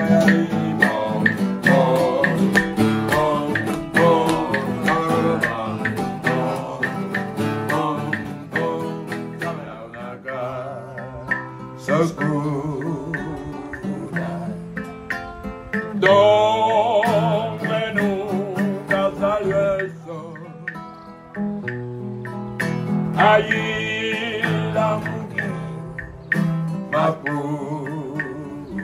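Acoustic guitar strummed and plucked in a Cuban son rhythm, with the steady click of wooden claves and two men's voices singing, their held notes wavering with vibrato.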